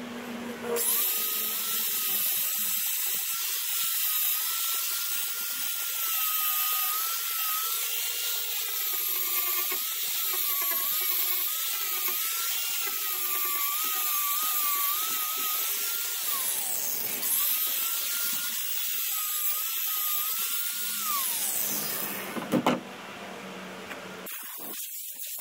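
Corded angle grinder grinding along the fiberglass edge of a boat transom, its motor whine wavering in pitch as it bears on the work. It winds down about two-thirds of the way through, starts up again, then winds down a second time, followed by a single knock.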